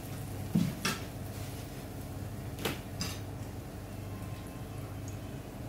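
Breaded fish fillet frying in hot oil in a pan, a steady sizzle over a constant low hum. Four short knocks and clinks of pots and pans, two in the first second and two about three seconds in.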